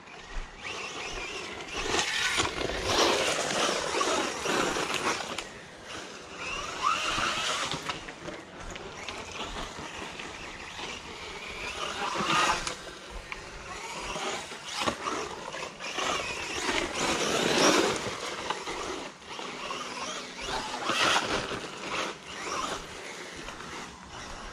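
Bezgar HM124 brushless RC car on a 3S LiPo driven hard on loose dirt: the motor's whine rises and falls in repeated bursts of throttle, with the tyres scrabbling over the ground.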